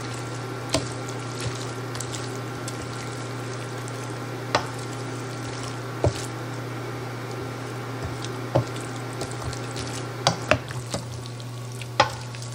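A spoon stirring a thick, wet chicken-and-rice casserole mixture in a stainless steel mixing bowl, squishing steadily, with sharp clinks now and then as the spoon strikes the side of the bowl. A steady low hum runs underneath.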